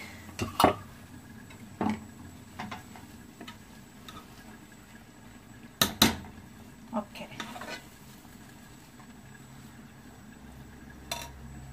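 Metal spoon stirring cooked rice in an aluminium pot, clinking and scraping against the pot with a few sharp clanks, the loudest about six seconds in.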